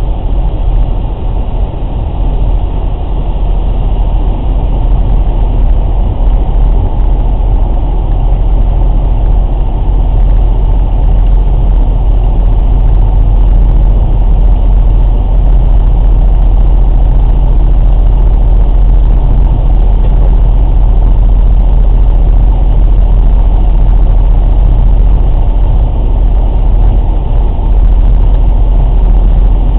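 Vehicle on the move with a loud, steady low rumble, which the owner takes for an abnormal noise from a tyre. It builds over the first several seconds and then holds steady.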